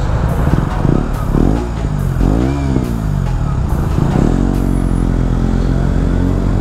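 Motorcycle engine, a KTM 125 Duke single with an Akrapovic exhaust, revving in a few short rises and falls while stopped as cars pass. About four seconds in it pulls away and accelerates steadily.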